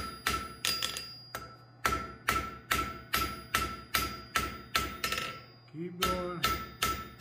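Hand hammer striking red-hot half-inch square steel on the edge of the anvil, about two to three blows a second, each with a ringing note from the anvil, drawing out the dragonfly's tail. The blows pause briefly about five seconds in, then resume.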